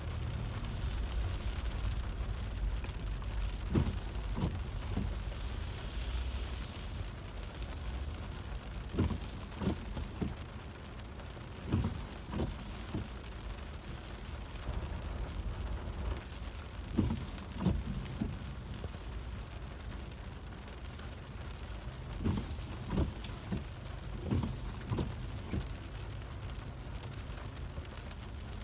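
Rain falling on a car's roof and windshield, heard from inside the cabin: a steady low rumble with scattered, irregular louder taps.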